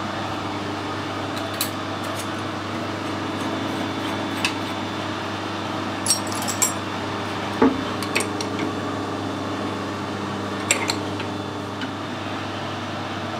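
Light metallic clinks and clicks, scattered irregularly, as a machine tap is handled and fitted into an ER collet chuck in a lathe tailstock, over a steady machine hum.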